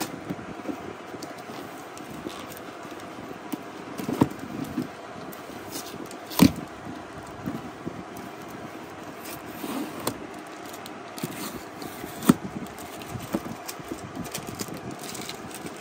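Cardboard box being torn open and handled by hand: scraping and crackling of the cardboard and tape, with scattered sharp knocks, the loudest about six and twelve seconds in, over a steady background hiss.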